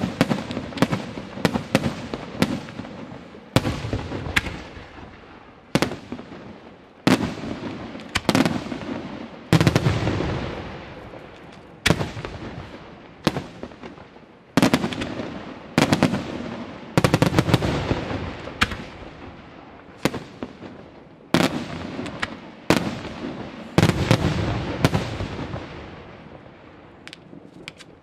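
Aerial firework shells bursting in quick succession, a sharp bang every second or two, each followed by a rolling echo that dies away.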